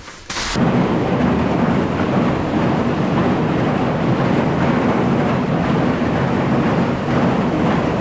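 Ear corn clattering along a corn elevator into a crib, with a tractor engine running. The noise starts suddenly about half a second in and then holds steady.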